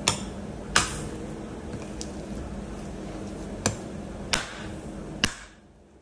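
Meat cleaver chopping through bone-in meat on a wooden chopping block: five sharp, irregularly spaced chops, each ending in a brief ring.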